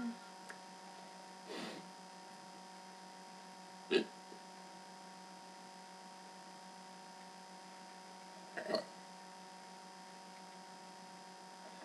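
Steady electrical hum with three brief sounds over it: a soft one a little after the start, a short, sharp, louder one about four seconds in, and a quick double one near the end.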